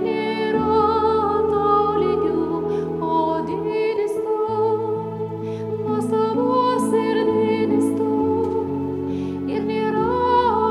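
A woman sings a slow hymn with vibrato over sustained chords on an electronic keyboard. The bass notes change every second or so.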